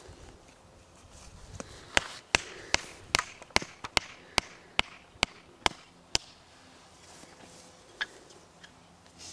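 Wooden mallet hammering a tent peg into the ground: about a dozen sharp, evenly spaced blows, a little over two a second, starting about two seconds in.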